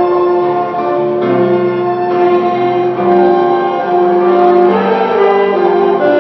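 Music: a church group's hymn performance, a slow melody of long held notes over keyboard accompaniment.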